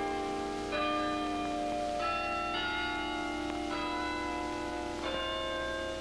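Tower chime bells ringing a slow tune, one bell struck at a time about every second, each note ringing on under the next.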